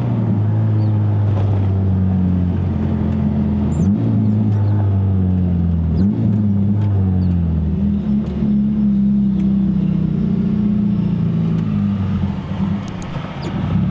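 Honda K24A four-cylinder engine breathing through a straight-pipe stainless exhaust, running steadily at low revs. Its note shifts briefly about four and six seconds in, and it drops in level for a moment near the end.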